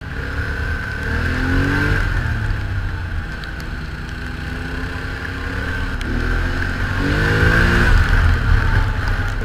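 ATV engine running under way, its pitch rising as it speeds up about a second and a half in and again around seven seconds in, over a steady low rumble and a steady high whine.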